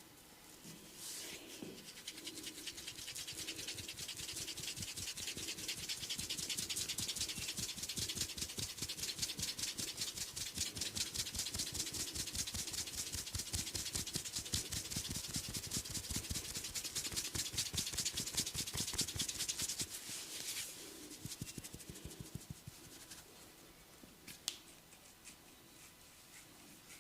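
Rapid rhythmic head massage: hands rubbing or tapping quickly over a person's scalp and hair in a fast, even run of rustling strokes. It builds over the first couple of seconds and stops about twenty seconds in, followed by a few single clicks.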